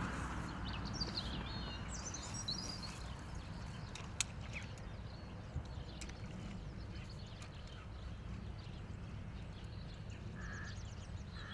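Open-air riverbank ambience: wind rumbling on the microphone, with small birds chirping now and then. A single sharp click comes about four seconds in.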